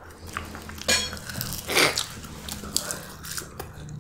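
Eating at a table: chewing and biting, with a few sharp clicks of utensils against a dish, the loudest about a second in and again just before the two-second mark.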